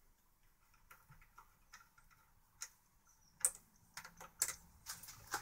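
Light metal clicks and ticks as a 3 mm Allen key turns out and frees the small bolt holding an air rifle's bolt handle. The clicks are scattered and faint at first, then louder and more frequent over the last two seconds.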